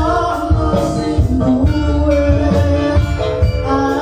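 Live Javanese gamelan music with a singer's voice over the loudspeakers, carried by a steady low drum beat.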